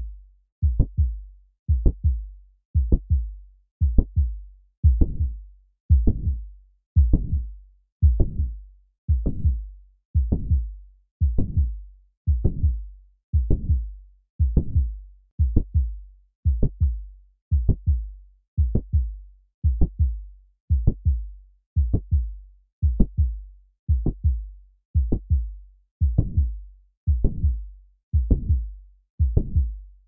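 Heart sounds of mitral valve prolapse as heard through a stethoscope, beating steadily at about seventy a minute. Each beat carries the first heart sound, a mid-systolic click and a late systolic murmur before the second sound, the murmur being the sign of mitral regurgitation.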